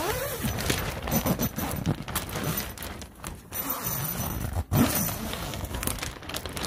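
Plastic sheeting of a zippered dust-barrier wall rustling and crinkling as it is pulled open, with irregular knocks and scrapes.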